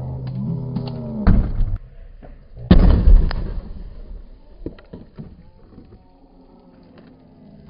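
Slowed-down audio of two explosions blasting a trash can: a sharp blast about a second in and a louder one a little under three seconds in, each ringing out for about half a second. Low, drawn-out wavering tones come before and between the blasts.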